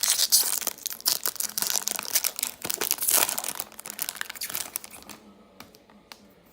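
A 2018-19 SP Authentic hockey card pack being torn open, its wrapper crinkling and tearing busily for about five seconds. Then it dies down to a few faint clicks.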